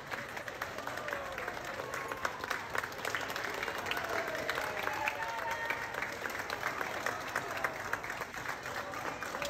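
A crowd of people clapping steadily, with a few voices calling out over the applause.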